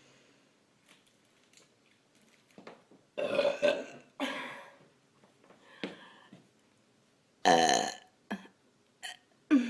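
A woman burping loudly several times, gas brought up from drinking a large bottle of soda: two burps close together about three seconds in, a weaker one near six seconds, and another loud burp near the end.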